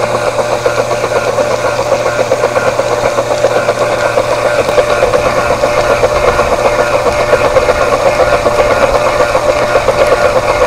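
Model marine steam engine running under steam at a steady speed, a fast even beat over a steady hum.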